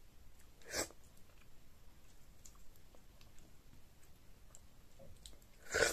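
Close-up eating mouth sounds from a mouthful of stretchy ogbono-okra soup with pounded-yam fufu: a short wet mouth noise about a second in and a louder one near the end, with faint clicks between.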